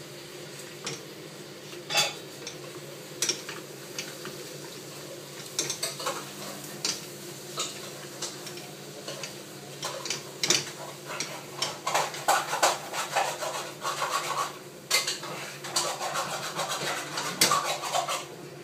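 Wooden spatula stirring and scraping a thick dhido dough of flour and water around a frying pan, with irregular knocks and scrapes against the pan that come thicker and faster in the second half. A steady low hum runs underneath.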